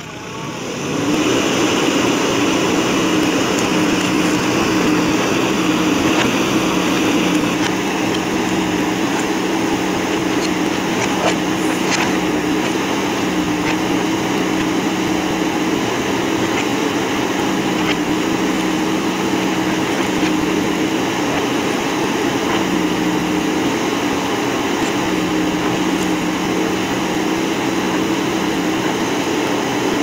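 JCB backhoe loader's diesel engine running steadily under load as the backhoe arm works. It gets louder about a second in, then holds an even hum.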